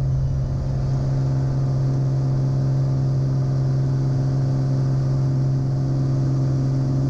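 Bonanza's six-cylinder Continental IO-550-B engine and Hartzell Scimitar propeller running at full takeoff power in the initial climb: a steady, even drone that holds one pitch throughout.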